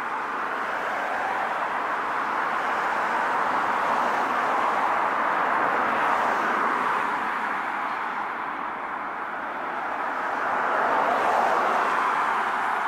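Road traffic passing on a nearby street: a steady rush of tyre and engine noise that swells about four seconds in and again near the end as vehicles go by.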